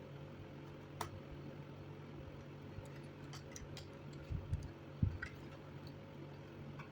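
Hands working on a laptop with small tools: scattered light clicks and a few soft knocks over a steady low hum.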